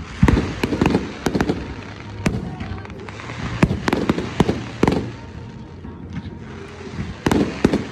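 Fireworks display going off: quick clusters of sharp bangs and crackles with short lulls between, the densest volleys near the start, in the middle and near the end.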